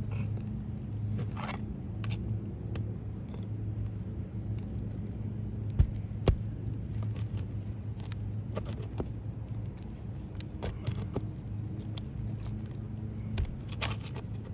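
Flat pry bar scraping and clicking under three-tab asphalt shingles, breaking their seal, with irregular crackles and a few sharper ticks; the old shingles sound brittle. A steady low mechanical hum runs underneath.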